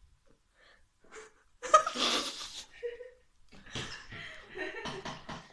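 A woman with hiccups laughing: a sudden loud breathy burst about two seconds in, then a run of short, choppy laughs near the end.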